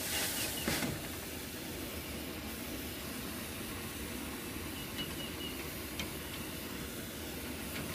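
Steady hiss of a brazing torch flame heating copper refrigerant line fittings to sweat them loose, with two faint ticks about five and six seconds in.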